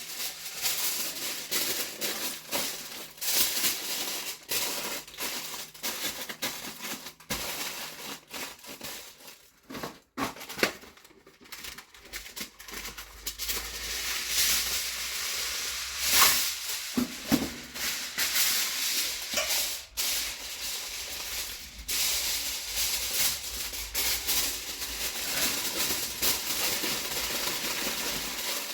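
Aluminium foil rustling and crinkling as it is handled and folded by hand, with irregular crackles throughout.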